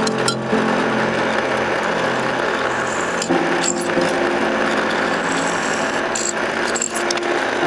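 An electric power tool running steadily while working wood, with a few brief breaks in the noise.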